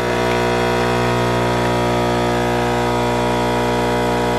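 DeLonghi Perfecta espresso machine's pump running with a steady, even hum during its descaling cycle, pushing descaling solution out through the spout into the jug.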